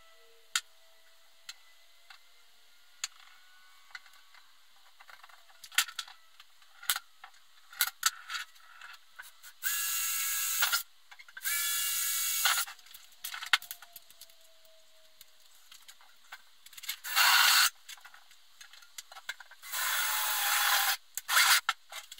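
Ryobi cordless drill running in four short bursts of about a second each, two around the middle and two near the end, cutting into an aluminium case panel. Between the bursts come scattered light clicks and taps of small tools being handled and set down.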